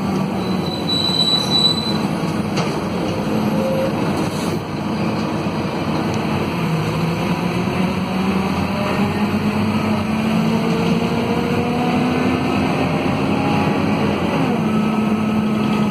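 Scania DC9 five-cylinder diesel and ZF Ecomat automatic transmission of a Scania K230UB city bus, heard from inside the cabin while driving, with a steady engine note and whining drivetrain tones that slowly rise in pitch. The pitch steps up near the end, and a brief high squeal comes about a second in.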